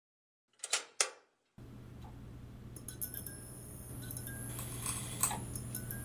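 Neon-sign sound effect: two short clicks about a second in, then a steady electrical hum starts, with scattered ticks and crackles of the sign flickering.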